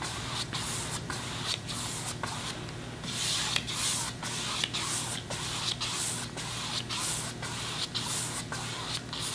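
Wide flat paintbrush swishing back and forth across a canvas, about two strokes a second, blending wet acrylic paint.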